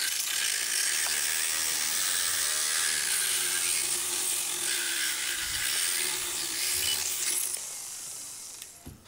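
Motorized dental power float with a spinning disc grinding down a horse's incisors: a steady, high, hissing grind that stops about seven and a half seconds in.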